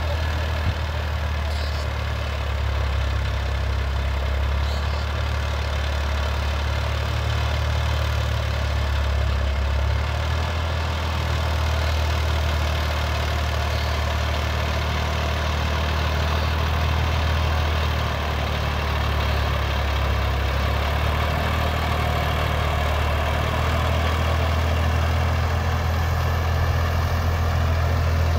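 Massey Ferguson 246 4WD tractor's diesel engine running steadily under load while driving a rotary tiller through the soil, growing a little louder as the tractor draws near.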